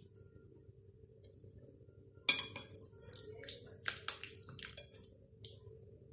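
A hand squishing and kneading a thick, wet marinade in a glass bowl, with one sharp knock against the bowl about two seconds in and a run of smaller wet clicks after it.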